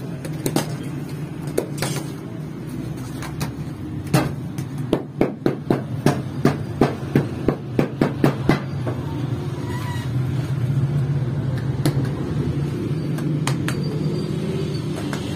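Bread dough slapped by hand, a quick run of sharp slaps about three a second midway through, over a steady low hum.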